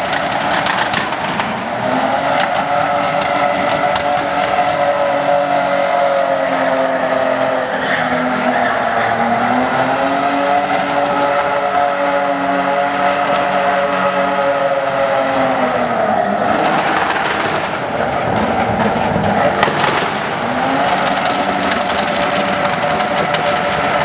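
Toyota Land Cruiser engine held at high revs through a smoky burnout and drift, its pitch sagging and climbing back twice, with the spinning tyres squealing over it.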